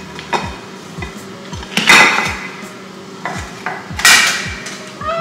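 A round metal cake pan and a plate clattering as a cake is turned out of the pan onto the plate, with two loud, ringing metal clanks, one about two seconds in and one about four seconds in, and lighter knocks between them.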